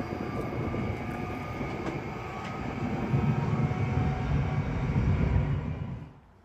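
Elron Stadler FLIRT electric train running on the track: a steady low rumble that grows louder a few seconds in, then cuts off abruptly about six seconds in.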